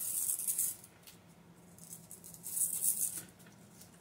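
Two short spells of dry rustling and rattling, one in the first second and another between two and three seconds in, from hands handling a solar panel's attached cord and its connector.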